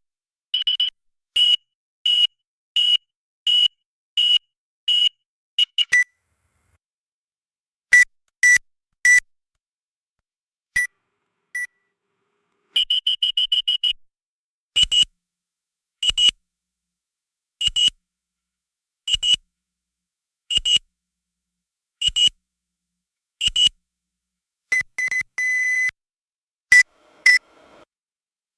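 Barcode scanner beeping: runs of short, high electronic beeps. First comes a steady series of about one and a half beeps a second, then a few lower-pitched beeps, a quick rapid burst, single beeps about every one and a half seconds, and a longer held beep near the end.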